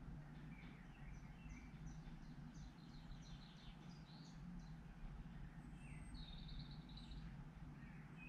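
Faint birdsong from a nature film on the TV: many short high chirps, with a brief trill a little past the middle, over a low steady hum.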